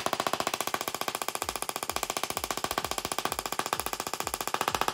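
Handheld Tesla coil spark gun firing continuously: a rapid, even crackle of sparks, many per second. From about a second and a half in, a low thump repeats about twice a second beneath it, like the kick drum of background music.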